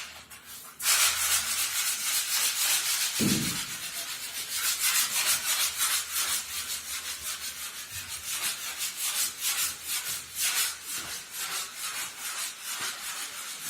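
Wall putty being hand-sanded, with a sanding float scratching over the plastered surface in quick, repeated back-and-forth strokes. A brief low thud comes about three seconds in.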